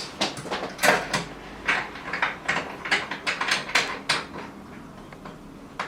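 Shower head holder's parts being fitted onto its wall-mounted base and tightened: a quick, irregular run of sharp clicks and knocks that stops about four seconds in.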